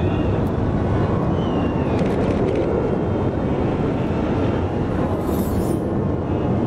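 Jet aircraft flying over, a steady rush of engine noise.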